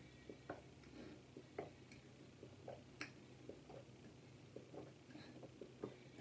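Quiet swallowing gulps from drinking out of a plastic water bottle: irregular soft clicks, about one or two a second, over a faint low hum.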